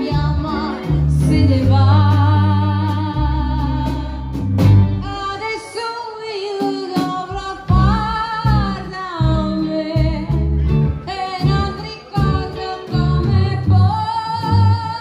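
Live rockabilly band playing, with upright double bass, hollow-body electric guitar and drums, and a woman singing long held notes without clear words.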